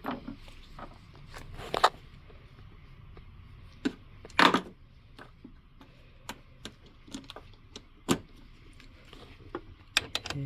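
Hand tools and metal hardware clinking and knocking while being handled: scattered sharp clicks, with louder knocks about two, four and a half, and eight seconds in.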